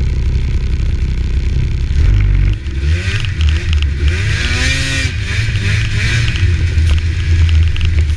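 Snowmobile engine running steadily at low revs, then revving up and down several times about three to six seconds in, with a rushing hiss over it while it revs.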